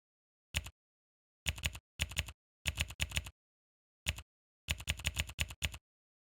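Computer keyboard typing in short, irregular bursts of rapid keystrokes, with dead silence between the bursts.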